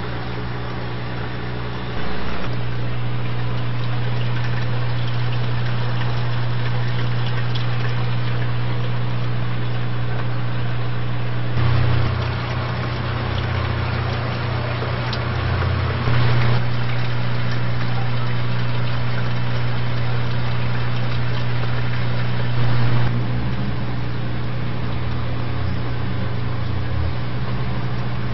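Aquarium equipment running: a steady low mechanical hum with an even hiss over it, briefly louder about 12, 16 and 23 seconds in.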